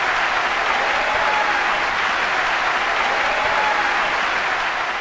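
A large concert audience applauding steadily.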